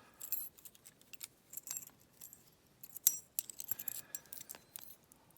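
Small metal lock-cylinder parts (pins, springs and the cylinder itself) clinking and ticking as they are handled and set down, in irregular light clicks with a sharper clink about three seconds in.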